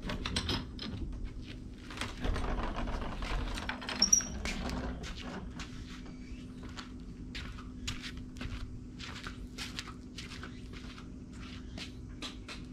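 Wooden clicks and knocks as the daybed's storage lid is handled, with a rustling stretch about two seconds in, over a steady low hum.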